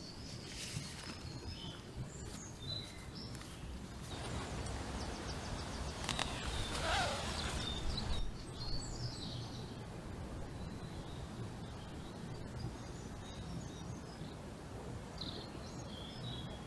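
Woodland birds chirping and calling, with short scattered calls over steady low background noise. For a few seconds before the middle there is a rustling as the nylon tent flysheet is handled.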